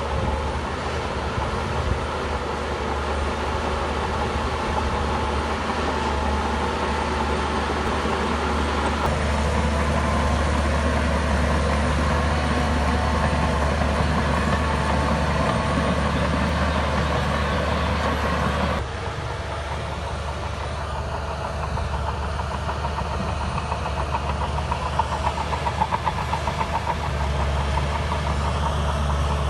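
Crawler bulldozer's heavy diesel engine running steadily under load. The sound changes abruptly about two-thirds of the way through, and a brief run of rapid clanking comes near the end.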